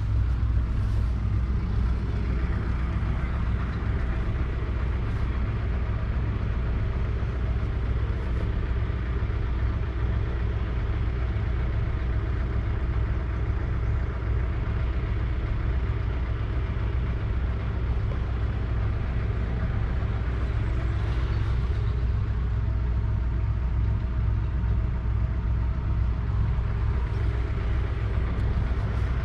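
1948 Ferguson TEA20's 1.9-litre four-cylinder petrol engine idling steadily.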